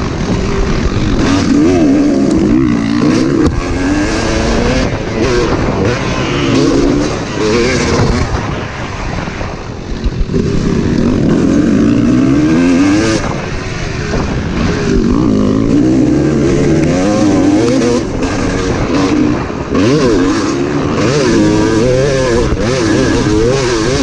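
Motocross dirt bike engine revving up and falling back over and over as it is ridden hard around a dirt track, with rough wind noise on the helmet-camera microphone.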